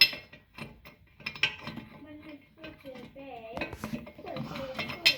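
Steel gears and parts of a Cub Cadet 70 rear end clinking and knocking against each other and the housing as they are worked by hand: an irregular string of sharp metallic taps, loudest right at the start.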